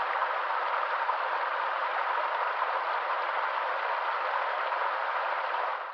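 River water flowing, a steady even rush that fades out near the end.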